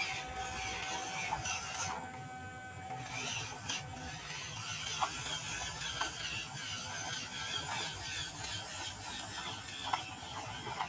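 Small RC pickup truck's electric motor and plastic gearbox running, a steady gear whir and grind with a few sharp clicks.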